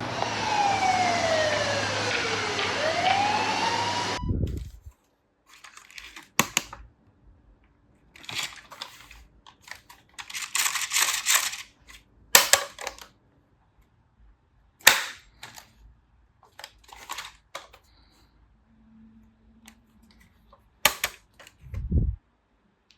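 A police-style siren wails for about four seconds, its pitch sweeping down and back up, then cuts off suddenly. It is followed by scattered sharp clicks and short clatters of plastic toy vehicles being handled and knocked together.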